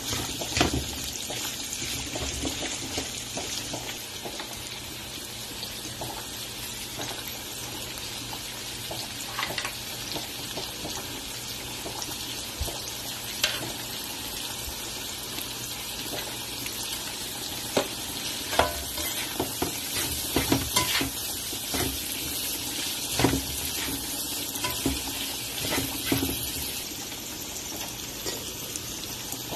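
Diced meat and mixed vegetables sizzling in oil in a non-stick pan as they are stir-fried: a steady frying hiss, with scattered knocks and scrapes of a spatula and a fork against the pan.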